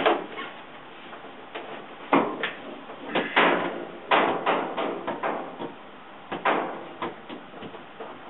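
A run of irregular hard knocks and clunks, about a dozen spread over several seconds, the loudest in the middle, over a steady low hiss.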